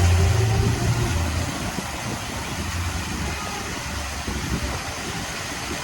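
Dancing water fountain's jets spraying: a steady rushing hiss, with a low rumble that is loudest in the first second and a half.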